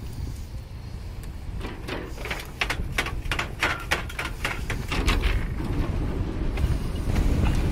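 Bicycle riding along a path: a steady low rumble of wind and tyres, with a run of sharp clicks, about four a second, starting about a second and a half in and stopping a few seconds later.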